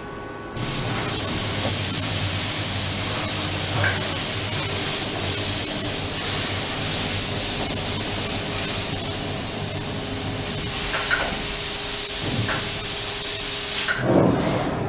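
Safan Darley E-Brake servo-electric press brake running: a loud, steady hiss sets in suddenly about half a second in and holds, with a faint steady tone beneath, then gives way to a few knocks near the end.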